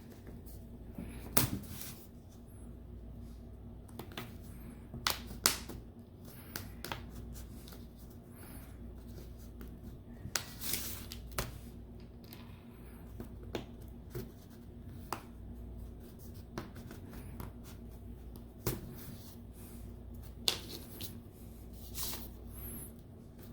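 Plastic retaining clips of a Samsung SM-T290 tablet's back cover snapping loose one after another as a plastic pry tool is run along the seam: irregular sharp clicks with short scrapes between them.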